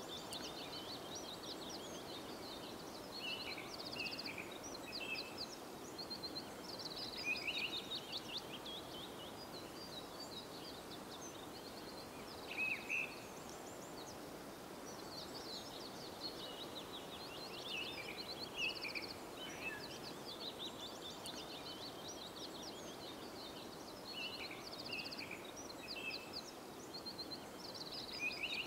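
Songbirds singing short phrases of chirps and quick trills, recurring every few seconds, over a steady background rush.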